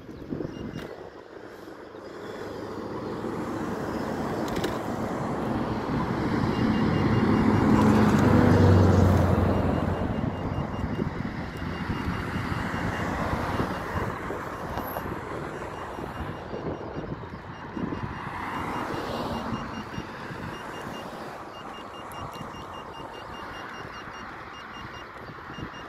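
Road traffic passing on the adjacent road, one vehicle swelling up and loudest about eight to nine seconds in, then fading. Wind rumbles on the microphone throughout, with a faint rapid high ticking that comes and goes.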